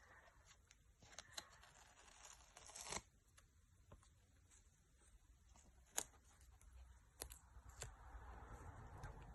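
Faint handling sounds from the new iPad 2 touchscreen being fitted: a rustling, tearing sound that builds and stops sharply about three seconds in, then a few light, sharp clicks.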